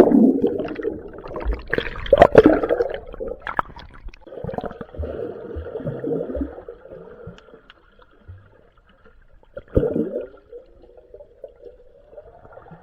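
Muffled gurgling and bubbling of pool water picked up with the microphone underwater, with louder surges of churning water about two seconds in and again near ten seconds.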